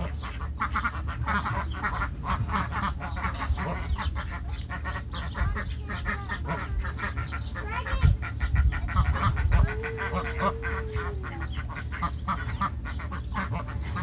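A flock of Indian Runner ducks quacking in rapid, overlapping calls without a break.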